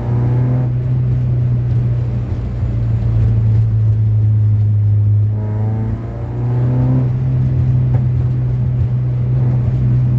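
Car engine and exhaust under acceleration: a steady low drone, with the engine's pitch climbing right at the start and again about six seconds in.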